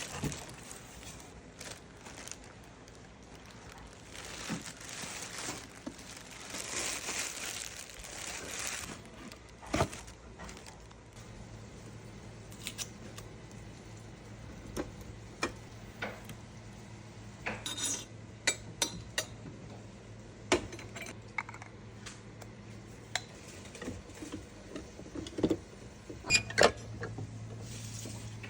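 Hard parts and accessories of an espresso machine being unpacked and handled: scattered clicks, knocks and clinks as pieces are picked up and set down, with packaging rustling for a few seconds early in the stretch. A low steady hum comes in about eleven seconds in.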